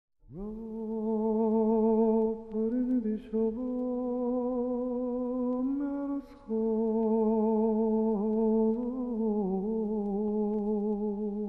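Slow background music: a single melody line of long held notes with vibrato, stepping between pitches, with brief breaks about two seconds in and again just after six seconds.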